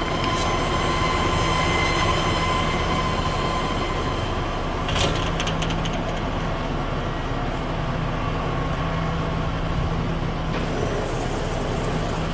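Kitamura MyCenter HX1000I horizontal machining center running as it is started up, a steady hum with a faint whine. A sharp click comes just under half a second in, and a short metallic clatter about five seconds in.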